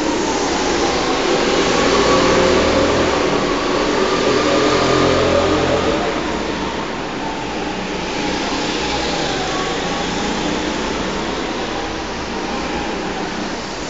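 Go-kart engines revving and easing off as karts lap an indoor track, the pitch rising and falling. Louder for the first half as karts pass close, then a more distant drone.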